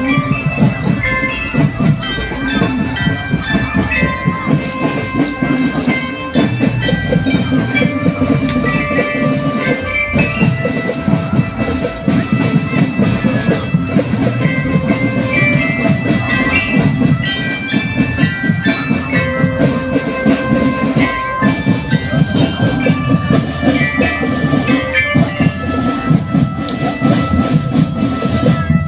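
Loud parade music with fast, dense drumming and a bright bell-like melody played over it.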